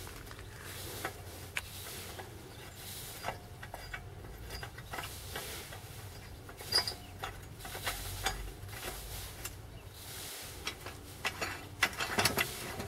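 Scattered light clicks and knocks from a homemade metal cut-off saw being handled, over a faint low hum.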